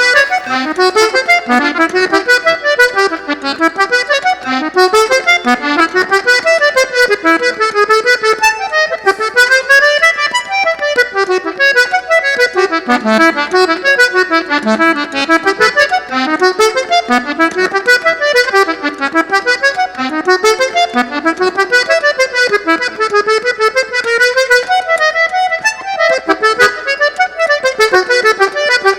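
Fole de oito baixos, the eight-bass diatonic button accordion of northeastern Brazil, played solo in a lively regional style. It plays fast runs of notes that rise and fall, without pause.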